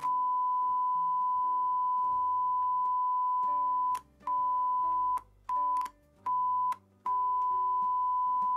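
A 1 kHz sine test tone played through a Sony TA-F333ESX integrated amplifier, holding steady and then cutting out and back in with a click several times over about three seconds as the input selector is turned. The dropouts and clicks point to dirty, worn switch contacts in the amplifier.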